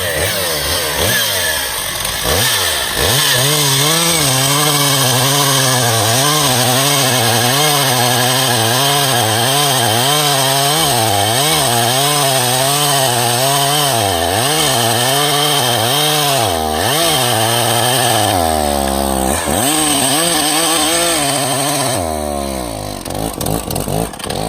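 Stihl chainsaw running at high revs while cutting firewood, its pitch rising and falling about once a second as it works through the wood. Near the end the revs drop and the engine turns ragged.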